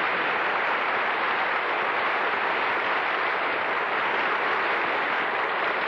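Studio audience applauding steadily as a segment ends.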